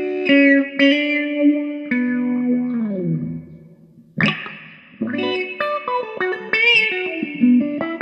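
Electric guitar played through a handmade auto-wah/envelope filter pedal, the filter sweeping with each picked note. A run of single notes ends in a slide down in pitch about three seconds in, then after a brief lull a sharp pick attack starts another phrase.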